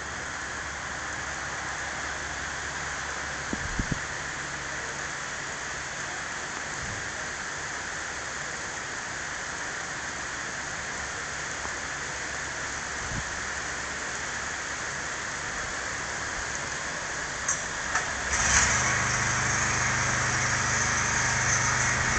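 Steady hiss of rain during a thunderstorm, with a few small taps about four seconds in. Near the end a louder, deeper rumble sets in and holds.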